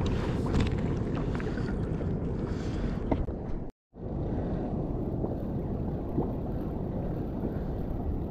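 Choppy sea water sloshing against a kayak hull, with wind on the microphone and a few light clicks in the first half. The sound cuts out completely for a moment a little under four seconds in.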